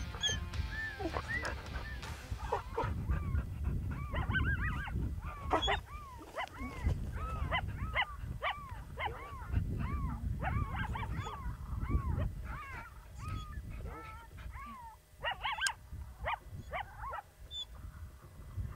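Coyote barking and yipping in a long, rapid run of short calls, each rising and falling in pitch, thinning out near the end. A low wind rumble on the microphone runs underneath.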